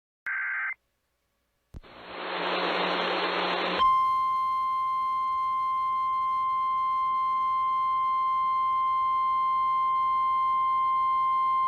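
A half-second burst of two-tone digital alert data, then about two seconds of radio static, then the NOAA Weather Radio 1050 Hz warning alarm tone, held steady for about nine seconds.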